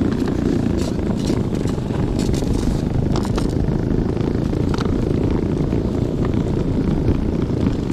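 Homebuilt electric tracked snow bike driving through snow, its dual NPC Black Max 3.8 HP electric motors and tracks making a steady low drive-and-churn noise, with scattered clicks and crackles from the tracks in the snow.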